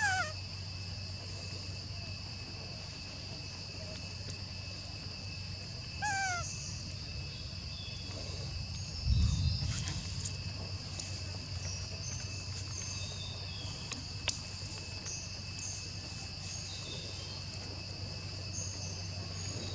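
Forest ambience: a steady high insect drone with scattered small bird chirps. A short falling call comes at the start and again about six seconds in. A brief low rumble on the microphone comes around nine seconds in.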